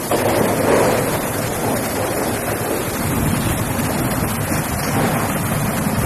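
Heavy rain pouring down in strong wind, with a steady rushing hiss and gusts rumbling on the microphone.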